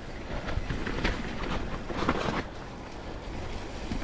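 Mountain bike rolling down a wet, muddy dirt trail: tyre noise over the dirt and roots with irregular rattles and knocks from the bike.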